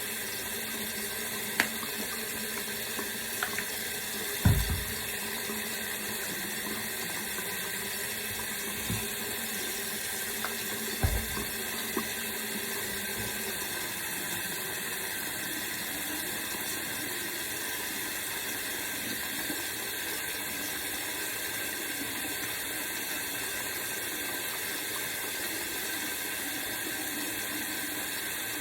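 Running water from a sink tap, a steady rush, with a few knocks and bumps about 1.5, 4.5 and 11 seconds in.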